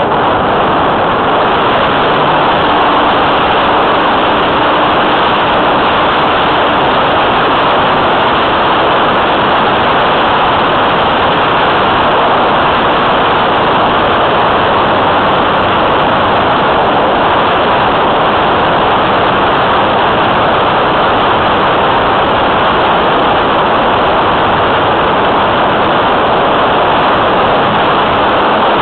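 Loud, steady rushing noise of airflow and motor picked up by a camera mounted on a radio-controlled model airplane as it takes off and climbs, with no distinct engine note.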